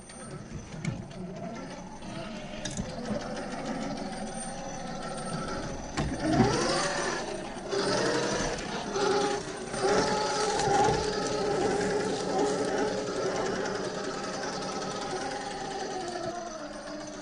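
The 2300kv brushless motor and geared drivetrain of an Axial SCX10 III RC crawler whining as it crawls over rock. The pitch rises and falls with the throttle, with a quick spin-up about six seconds in and a few knocks.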